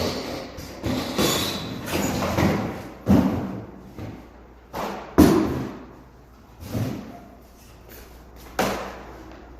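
A series of about ten irregular thumps and knocks, each followed by a short rush of noise, the strongest about five seconds in.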